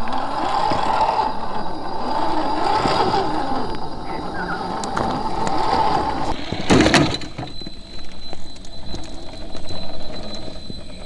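A 1/10-scale RC rock crawler's electric motor and geared drivetrain whine steadily as it crawls over loose rock, with small stones clicking and crunching under the tyres. There is a loud crunch about seven seconds in, and the whine is higher-pitched after it.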